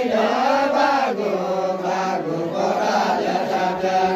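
A group of men singing a Deuda, the Far-Western Nepali folk song of the linked-arm circle dance, together in long held notes whose pitch wavers and slides early on, then steadies.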